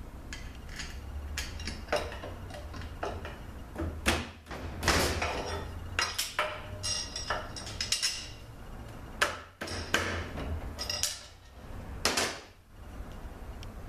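Irregular metal clanks, knocks and scrapes as a bar and hands work the front oil pump loose from a Ford AOD automatic transmission's aluminium case.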